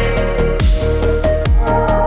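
Electronic background music with a steady beat: kick drum, hi-hats, deep bass and a synth melody.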